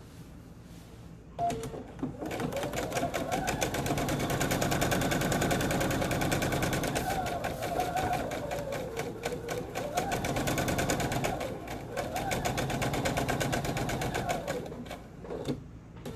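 Electric sewing machine stitching a long straight seam through quilt fabric: rapid needle clatter over a motor whine that rises and falls as the speed changes. It starts about a second and a half in and stops a second or so before the end.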